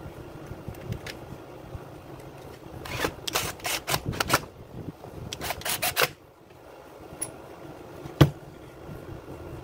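Clicking, scraping and clattering as the plastic and metal parts of a Makita UC4551A electric chainsaw are handled on a workbench: two runs of rapid clicks a few seconds in, then a single sharp knock near the end.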